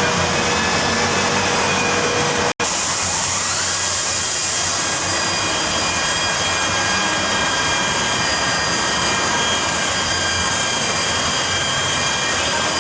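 A motor-driven workshop tool running steadily, a loud continuous hiss with thin whines over it, cut off for an instant about two and a half seconds in.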